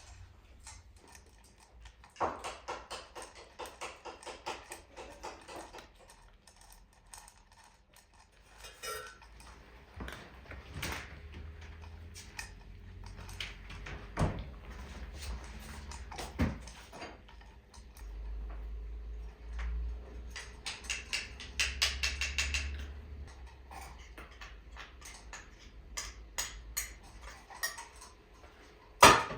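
Kitchen work sounds: two runs of quick, repeated strokes, separate clinks and knocks of utensils and dishes, and one loud knock near the end.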